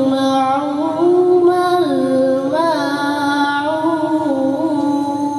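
A boy's voice chanting an unaccompanied religious recitation into a microphone. The long held notes step up and down, with small melodic turns.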